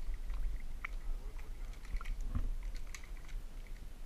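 Pool water lapping at a camera sitting at the water's surface: small scattered clicks and ticks over a steady low rumble.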